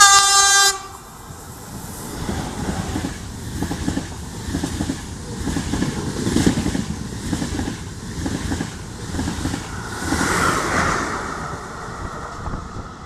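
Train horn sounding one short blast, then an Intercity train's coaches running close past with a rhythmic clatter of wheels over the rail joints that fades near the end.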